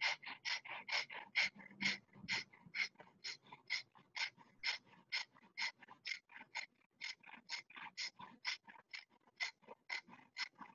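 A woman doing breath of fire: rapid, forceful rhythmic breaths through the nose, about four puffs a second, kept up evenly throughout.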